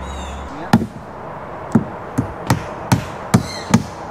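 Hammer driving nails into new plywood roof sheathing: about seven blows, the first two a second apart, then coming faster, two or three a second.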